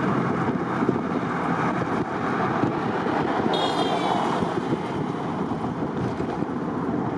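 Wind rushing over the microphone and road noise from a vehicle driving along a highway, steady throughout. A brief, faint high-pitched whine sounds about halfway through.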